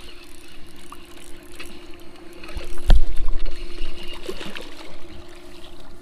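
Handling and rubbing noise on a body-worn camera as a spinning rod is worked and a fish is brought to the bank, with one loud bump about three seconds in. A steady low hum runs underneath.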